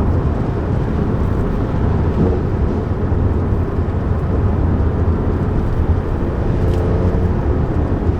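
Two-seater sports car driving at a steady pace on a wet road: engine and road noise make a continuous low rumble.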